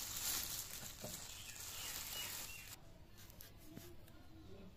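Thin plastic bag crinkling and rustling as ripe tomatoes are tipped out of it into a steel bowl of water, stopping abruptly a little under three seconds in. A few faint clicks follow.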